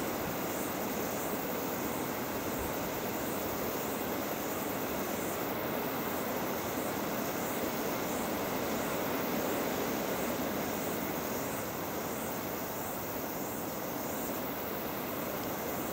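Steady outdoor background rush with no distinct events, heaviest in the low middle range, and a faint high pulsing that repeats about one and a half times a second.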